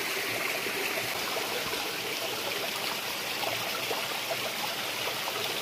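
A stream running steadily: an even, unbroken rush of water.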